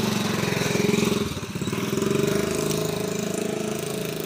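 An engine running steadily, briefly dropping in level about a second and a half in, then picking up again.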